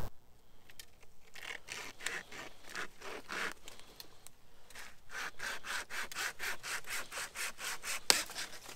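Flexible wire saw pulled back and forth by hand through a thin tree branch, in quick rasping strokes of about three a second. A single sharp crack sounds near the end.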